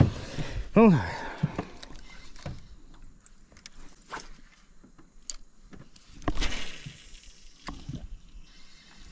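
Fishing tackle handled in a small metal-decked boat: scattered clicks and knocks, a short wordless voice sound about a second in, and the swish of a rod being cast a little after six seconds.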